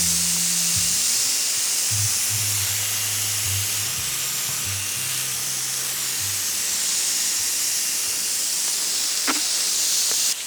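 Water spraying from a hose nozzle onto a fresh concrete slab in a steady hiss, wetting the concrete to keep it moist while it cures. Background music with a low bass line plays underneath.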